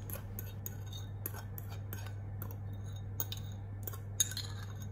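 Metal fork scraping and clinking against the inside of a ceramic bowl as egg mixture is scraped out onto toast: a quick irregular run of light clinks and scrapes.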